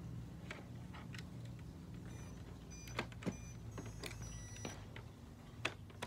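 Radio-controlled model excavator working: small electric motors whine in short spurts over a low steady hum, with a few sharp clicks or knocks from the moving parts.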